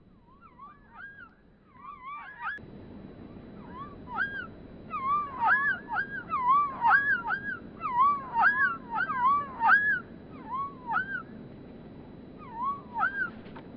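White-breasted nuthatch giving nasal 'yank' calls, a long series of short, rising-then-falling notes that come thickest in the middle and thin out toward the end.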